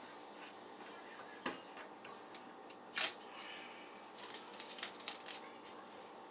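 Light clicks, taps and crackling from hands working at a cupboard door while fitting small clear plastic adhesive knobs. The sharpest click comes about three seconds in, and a quick run of small ticks and crackles follows a second later.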